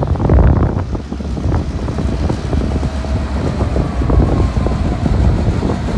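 Diesel locomotive engine running with a deep rumble as it moves slowly past at close range, with wind buffeting the microphone.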